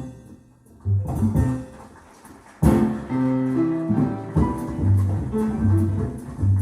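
Jazz recording with guitar and double bass played back through B&W 802D3 floor-standing loudspeakers. The music dips nearly to silence about half a second in, returns briefly, then comes back in strongly a little before halfway, with plucked bass notes under sustained chords.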